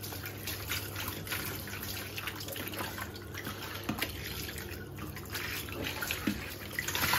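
Kitchen tap running onto fish pieces in a tray in the sink, with splashing and dripping as hands rub and turn the fish to rinse them. The water runs steadily with small irregular splashes and grows louder near the end.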